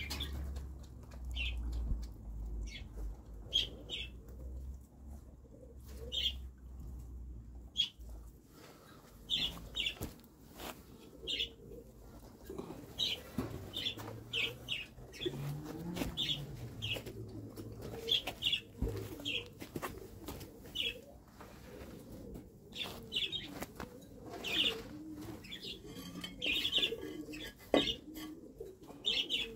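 Small birds chirping in short, separate chirps, often in quick pairs or threes, throughout. A low rumble fills the first eight seconds or so, and there are a few sharp knocks as food dishes are handled and set down.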